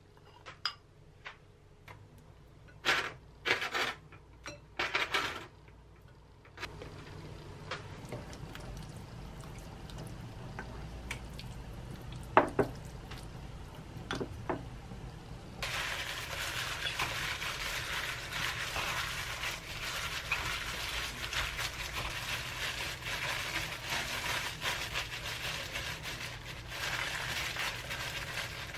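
Kitchen food-prep sounds: a few light clinks of a spoon and dishes, with a sharp clink about twelve seconds in. From a little past halfway comes a steady crinkly rustle of a disposable plastic glove kneading and mixing cooked rice.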